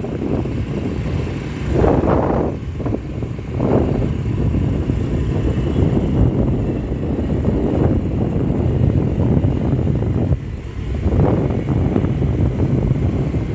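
Road vehicle noise: a steady low rumble with louder swells about two, three and a half, eight and eleven seconds in.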